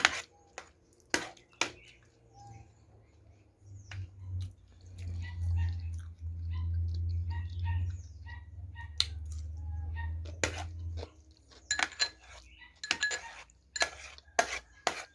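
A fork or spoon clinking and scraping against a plate in sharp clicks, near the start and again through the last few seconds, with a low steady rumble in between.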